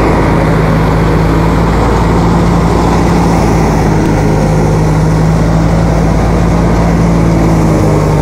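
Wheat threshing machine running at a steady pace, a loud, even mechanical drone with a strong low hum.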